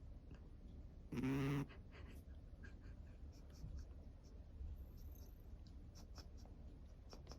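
A domestic cat snoring in deep sleep: one loud, short snore with a steady pitch about a second in, then only faint low breathing noise.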